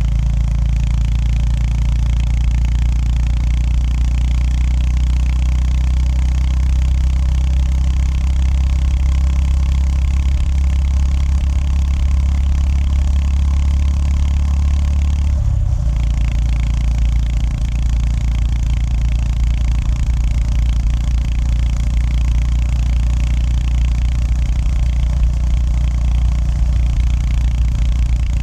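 Honda GB350S's air-cooled single-cylinder engine running steadily under way, heard from the rider's position over steady road and wind noise. About halfway through the engine note breaks briefly and then carries on with a changed pitch pattern.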